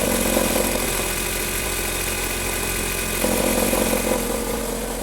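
Nissan Sentra engine idling in drive, its belt tensioner wedged by hand so that its knocking stops. A louder mid-pitched rumble comes in about three seconds in for about a second.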